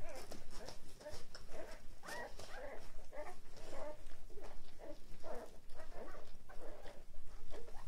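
A litter of six-day-old puppies squeaking and whimpering while they nurse, many short high squeaks overlapping one another.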